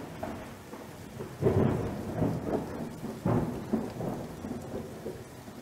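Thunderstorm: steady rain with rolling thunder, two louder rumbles about a second and a half in and just past three seconds in.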